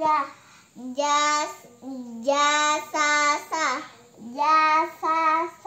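A young girl chanting Arabic letter-syllables from an Iqro primer in a sing-song recitation. Each syllable is drawn out for about half a second, with short pauses between them.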